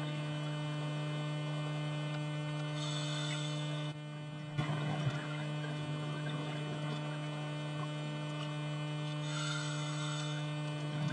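Steady electrical hum of an underwater video camera in its housing, with a diver's scuba regulator breathing over it: a short hissing inhale twice, about six seconds apart, each followed by a bubbly crackle of exhaled air.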